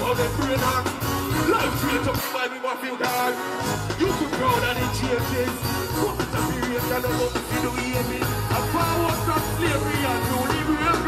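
Live dancehall performance: a deejay's amplified vocal over a heavy-bass riddim. The bass cuts out for about a second and a half, about two seconds in, then comes back.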